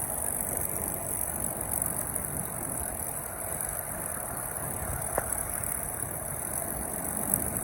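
WWII fighter aircraft piston engines running at low power as the aircraft taxi: a steady rumble with no rise or fall in pitch.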